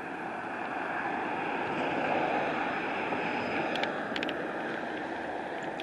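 A car driving past on the street, its tyre and road noise swelling to a peak about two seconds in and then fading away.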